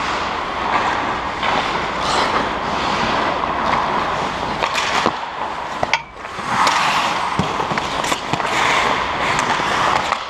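Ice hockey play close to the goal: ice skate blades scraping and carving on the ice, with sharp clacks of sticks and puck now and then.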